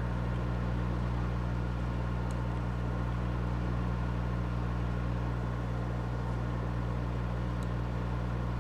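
Steady low electrical hum with a constant pitch, with a couple of faint small ticks.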